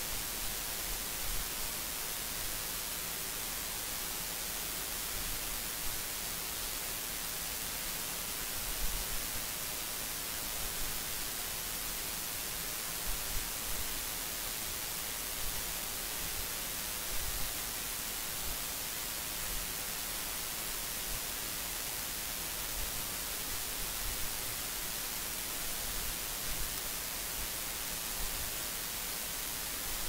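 Steady hiss from the recording's noise floor, like static from an open microphone, with faint low thumps and clicks now and then.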